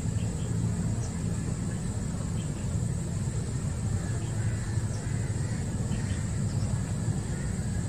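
Steady low outdoor rumble, with a few faint, short high sounds over it.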